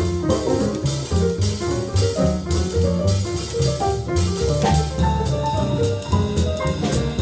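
Small jazz combo playing swing: an upright bass walks a steady stepping line close by, with drums and cymbals keeping time and other instruments playing above.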